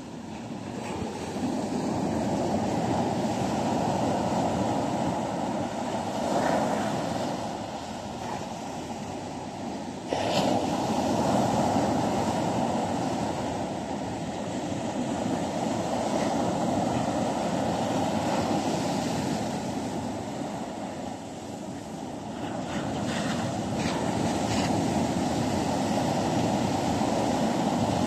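Ocean surf breaking and washing up a sandy beach, a steady rushing that swells and eases with the waves, with wind blowing on the microphone. The level jumps suddenly about ten seconds in.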